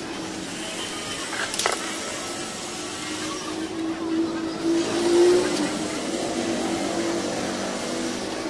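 Steady mechanical hum holding one tone, with a single sharp click about one and a half seconds in.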